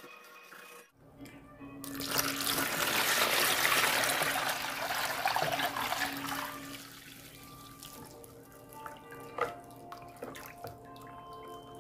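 Cooled rice-flour broth poured in a steady stream into a plastic bowl of kimchi filling, splashing for about five seconds. It then gives way to a ladle stirring the liquid, with a few light clicks and drips.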